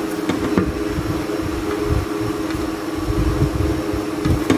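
A steady mechanical hum with a constant tone, over an uneven low rumble, with a few faint ticks.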